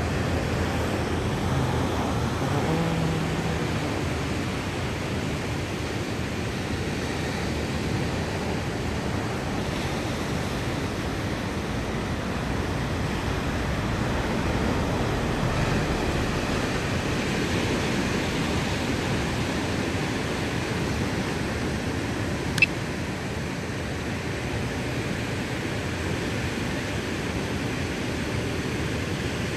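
Steady rushing noise of sea wind and ocean surf. A single sharp click about three-quarters of the way through.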